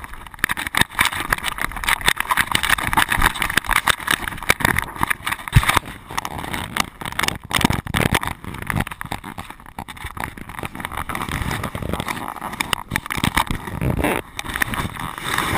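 Handling noise from a loosely mounted action camera on a moving dog: continuous rapid rattling, knocking and rubbing of the camera housing against its mount and the dog's fur.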